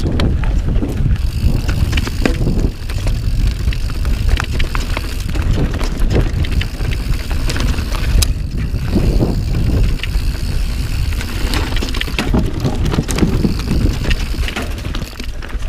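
Mountain bike riding down a dirt trail: tyres rolling on dirt and the bike rattling over bumps, with scattered clicks over a steady low rumble.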